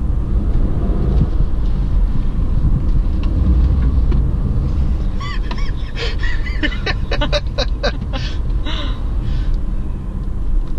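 Steady low rumble of a car's engine and tyres on the road, heard from inside the cabin while driving. From about halfway through, a run of short, bending higher-pitched sounds and clicks comes in on top.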